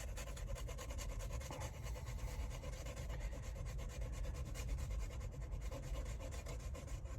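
Scratch-off lottery ticket being scratched: a continuous run of quick, fine rubbing strokes over the card's coating, over a steady low hum.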